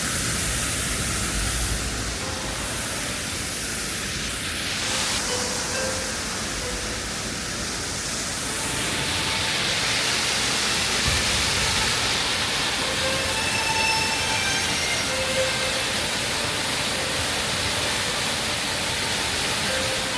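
Waterfall rushing as a steady, even noise of falling water.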